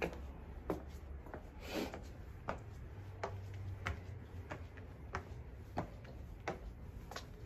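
Footsteps climbing tiled stairs, a sharp step about every two-thirds of a second, over a low steady hum.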